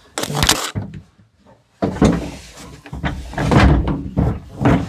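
Large black plastic DECKED platform panel being set into a pickup bed: a sharp knock just after the start, a short pause, then a sudden thud about two seconds in followed by uneven knocking and scraping of plastic against the truck bed and the first platform section.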